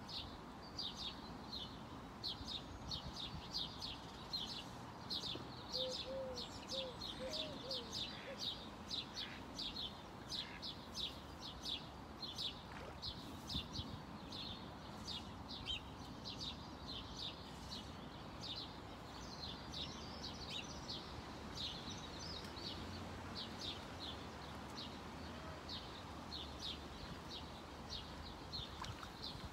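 Small birds chirping continuously: short, high chirps several a second, with a brief lower warble about six seconds in.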